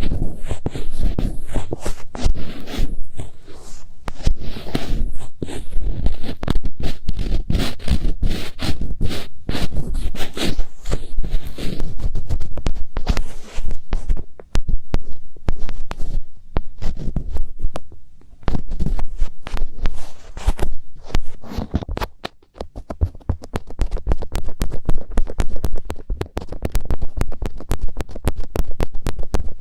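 Finger ear-cleaning ASMR: fingertips rubbing and scratching right on a binaural microphone's ear. It makes close, dense scraping and crackling over a muffled low rumble. About two-thirds of the way in, the strokes turn quicker and lighter, into rapid fine crackles.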